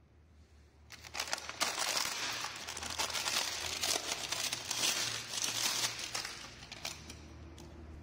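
Clear plastic bag crinkling and crackling as it is handled and opened around a pair of bike pedals, starting about a second in and dying down near the end.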